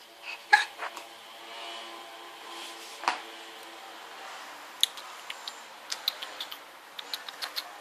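A scatter of light clicks and taps over a faint steady hum: a couple of louder knocks near the start and about three seconds in, then a quicker run of small ticks in the second half.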